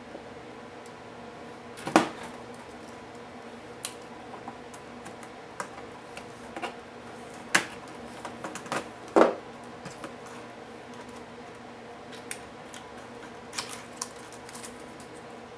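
Irregular clicks, taps and knocks of hand tools and plastic and metal parts as a Lenovo IdeaPad U460 laptop is taken apart. The loudest knocks come about two seconds in and around nine seconds, with a small flurry of clicks near the end, over a low steady hum.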